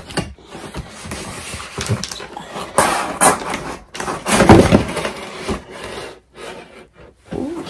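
Corrugated cardboard shipping box scraping and rubbing as it is pulled up off the packed box and its molded pulp corner protectors, in several uneven strokes with short pauses, the loudest a little past the middle.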